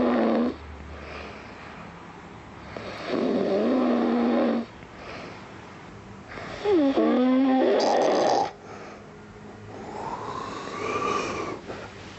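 A man snoring in his sleep while wearing a tongue-retaining anti-snoring sleeve: three loud, buzzing snores about three and a half seconds apart, the first ending half a second in, with quieter breathing between them.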